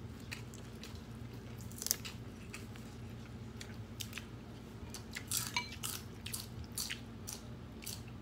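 Close-up chewing and eating noises, with scattered small clicks and crunches that are busiest about five to seven seconds in, over a low steady hum.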